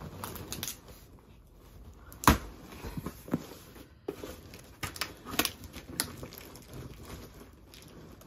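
Handling and prying at a taped cardboard box with a makeshift tool: scattered taps, scrapes and crinkles of cardboard and packing tape, with one sharp knock about two seconds in and a few smaller clicks after it.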